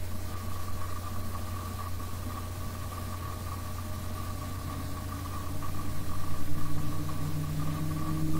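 Steady low engine hum, like a motor idling. About five seconds in, a second tone comes in, rises slightly in pitch and grows louder.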